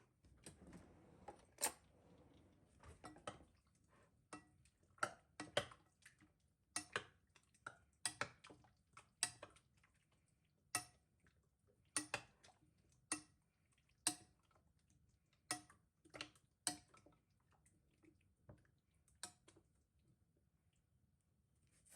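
Light clicks and knocks of kitchenware being handled, irregular and roughly one every second, some in quick pairs.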